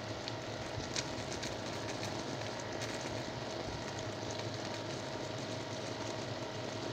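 Old 50-volt mains transformer humming steadily under heavy load while the 12-volt sealed lead-acid battery across it, fed about 80 amps of AC, hisses as it vents steam. There are a few sharp crackles.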